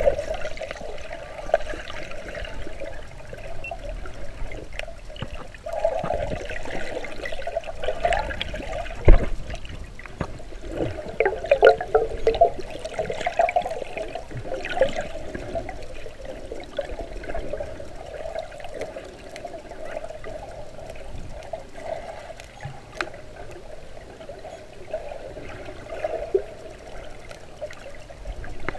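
Water heard underwater: continuous bubbling and gurgling, with a single sharp knock about nine seconds in.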